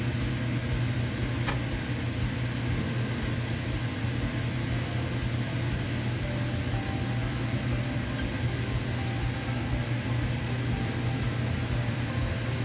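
A steady low mechanical hum with a constant hiss, like a running kitchen appliance, with one sharp click about one and a half seconds in.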